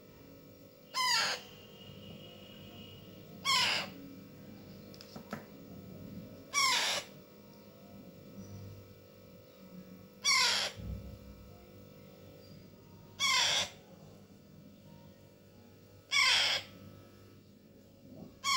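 A 25-day-old parrot chick giving short, harsh squawks, about one every three seconds, while it is hand-fed from a spoon: the food-begging calls of a hungry chick.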